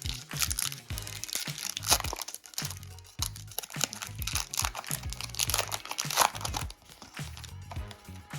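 Foil wrapper of a trading card pack crinkling and crackling as it is torn open and handled, over steady background music.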